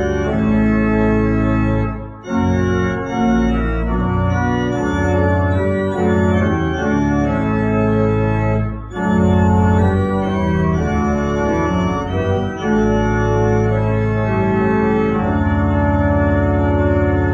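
Church organ playing slow sustained chords over deep held pedal bass notes, with short breaks between phrases about two seconds in and again near nine seconds.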